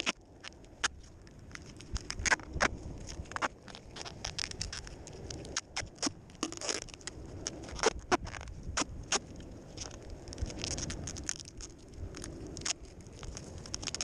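Duct tape being pulled off the roll and wound round a metal detector's arm cup: irregular crackling and sharp clicks as the tape peels and sticks, with a longer crackly pull about halfway through.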